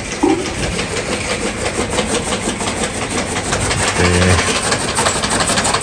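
Powered chaff cutter (toka machine) chopping green fodder, a steady, rapid, even clatter over the noise of the machine running.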